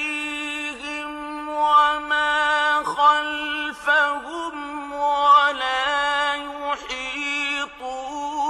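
A man reciting a Quranic verse in a slow, melodic chant, drawing each syllable out into long held notes whose pitch wavers and turns, with brief pauses for breath.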